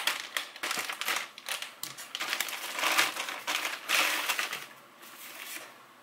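Clear plastic packaging bag crinkling and rustling as it is opened and fabric shorts are pulled out of it, in irregular bursts that fade away about five seconds in.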